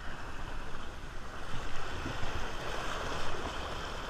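Sea waves washing and splashing against the rocks and concrete blocks of a breakwater, with wind rumbling on the microphone.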